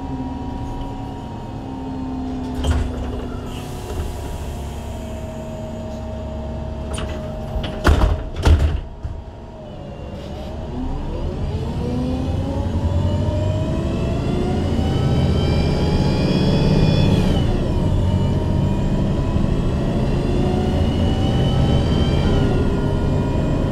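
Onboard sound of a MAN Lion's City G articulated CNG bus with a Voith automatic gearbox. The engine and gearbox whine falls as the bus slows, with a couple of sharp knocks about eight seconds in. It then rises again as the bus pulls away, dropping in pitch at gear changes about seventeen and twenty-two seconds in.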